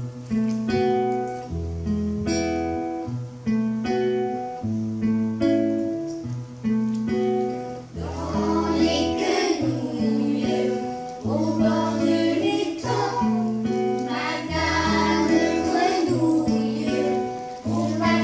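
Acoustic guitar playing a repeating plucked accompaniment; about eight seconds in, a group of voices begins singing a song over it.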